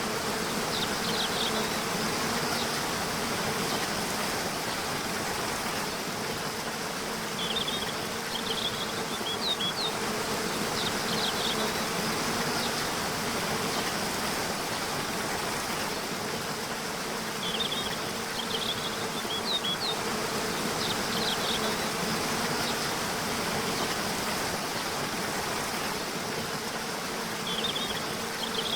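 Waterfall rushing steadily, with a low continuous hum under it. Small birds chirp in short high clusters about every ten seconds, four times.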